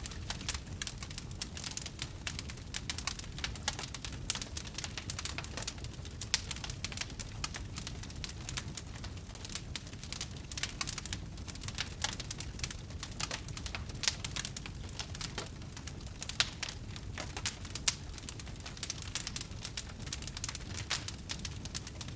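Wood campfire crackling: a dense run of small snaps over the low, steady rush of the flames, with two louder pops about three quarters of the way through.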